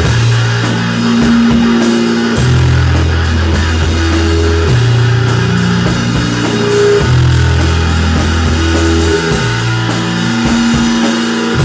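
Live rock band playing an instrumental passage: drum kit keeping a steady beat under electric guitar, with long low notes that change every couple of seconds.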